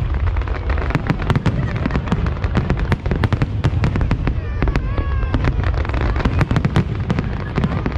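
Fireworks display at close range: a dense, unbroken run of sharp crackling bangs over a steady low rumble of bursting shells.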